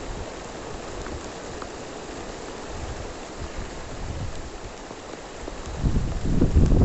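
Heavy rain falling as a steady, even hiss. About six seconds in, gusts of wind start buffeting the phone's microphone with a louder low rumble.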